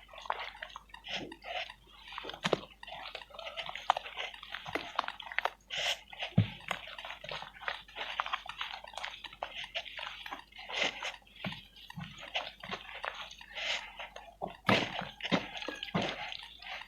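Pure cement being crumbled: a dense, irregular run of crackles, crunches and small clicks, with a few louder cracks.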